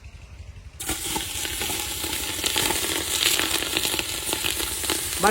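Onions going into hot cooking oil: the oil starts sizzling suddenly about a second in and keeps frying steadily.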